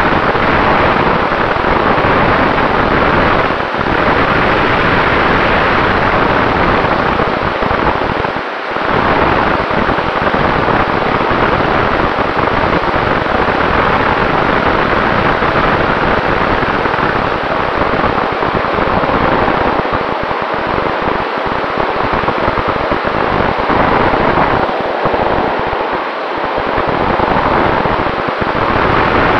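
Steady rush of airflow over the onboard camera microphone of an RC plane in flight, with the Sunnysky brushless motor and APC propeller running under it and a faint steady whine. The rush dips briefly a few times.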